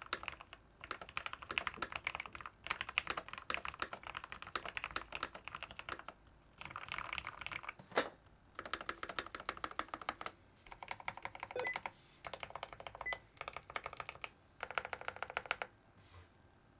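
Typing on a thocky Keychron K14 mechanical keyboard with Momoka Frog switches, Akko Cool Gray keycaps and a silicone pour in the case: fast runs of keystrokes in bursts of a second or two with short pauses. One sharper, louder stroke comes about eight seconds in, and the typing stops near the end.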